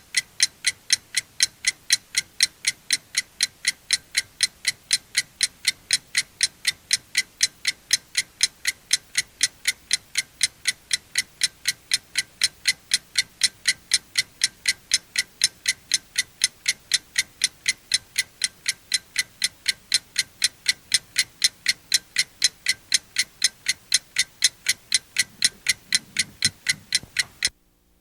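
Mechanical alarm clock ticking: a fast, even run of light, high-pitched ticks, several a second, that stops abruptly near the end.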